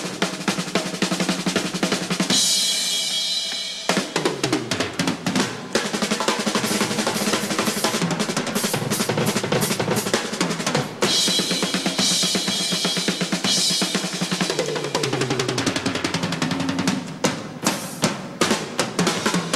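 Drum kit played solo: fast snare and tom rolls over bass drum, with a long ringing cymbal crash about two seconds in and another around eleven seconds in.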